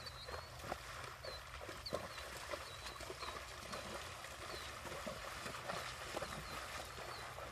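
A horse's hooves splashing through shallow water in an irregular rhythm, with short high chirps repeating every half second or so.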